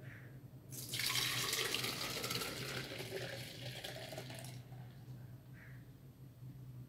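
Foamy soapy liquid poured from a plastic bowl into a plastic blender jar: a gushing splash starts about a second in and dies away to a faint trickle after about four seconds.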